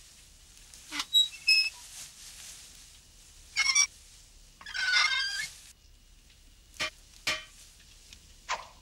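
Animated-film sound effects for a rusty, bird-like metal creature: a scattering of short squeaky chirps and clicks at irregular intervals, with a longer chirping burst about five seconds in.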